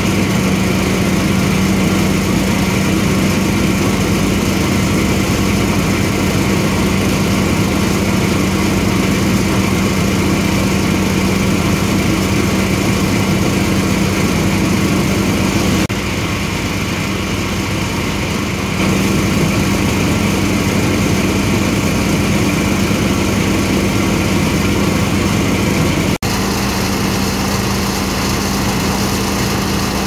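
Small motorized rice threshing machine running steadily, a constant motor hum with a strong low tone over the whir of its drum.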